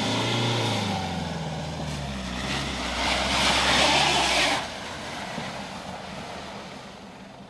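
Toyota Land Cruiser Prado 150's engine revving hard under load as it drives up a steep snowy, muddy slope. From about two and a half seconds in, a loud rushing hiss of tyres spinning and scrabbling in snow and mud joins it. Both fall away sharply about four and a half seconds in, leaving the engine running quieter: the climb has stalled.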